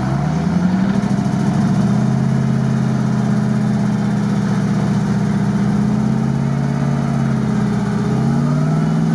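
Off-road truck's engine under load in deep mud: it revs up at the start, holds steady revs while the truck creeps forward, and revs up again near the end.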